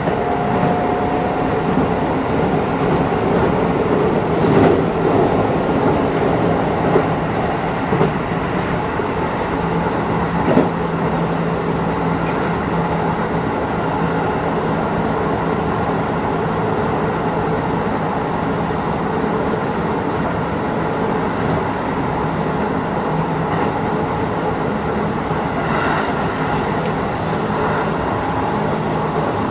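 Running noise of a Keisei 3050 series electric train heard from inside the car: a steady rumble of wheels on rail, with a few sharp clicks in the first ten seconds or so.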